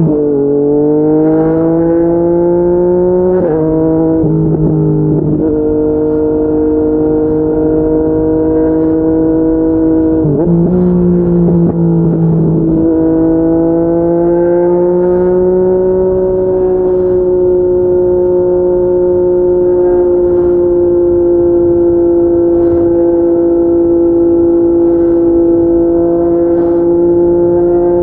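Yamaha MT-09 inline-three engine with a Yoshimura R55 slip-on exhaust, heard from the rider's seat. It revs up through a gear, upshifts about three seconds in and again about ten seconds in, then cruises at steady revs.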